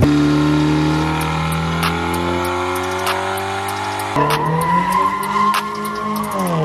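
Car engine running hard, its pitch sliding down and back up near the end, with a tyre squeal that comes in suddenly about four seconds in, over a trap beat.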